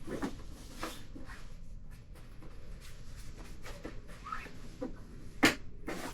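Handling noises: scattered soft clicks and light knocks, with one sharp, louder click about five and a half seconds in.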